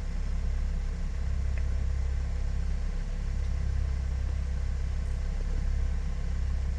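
A car engine idling steadily, a low rumble with a faint steady hum above it.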